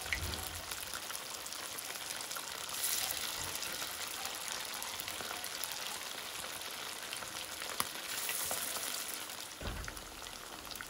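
Chicken pieces coated in egg and flour batter deep-frying in hot oil in a wok: a steady, dense sizzle full of fine crackles and pops. A low bump comes right at the start and another near the end.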